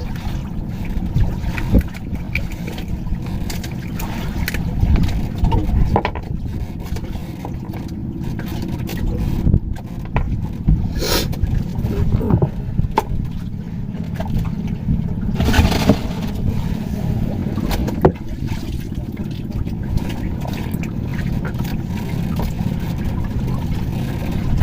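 Wind rumbling on the microphone aboard a small boat, with scattered knocks and scrapes and two short hissing rushes, about eleven and fifteen seconds in.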